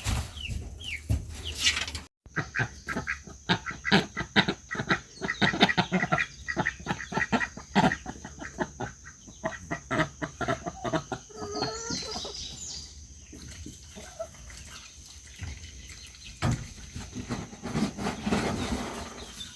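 Flock of chickens clucking, with many short overlapping calls.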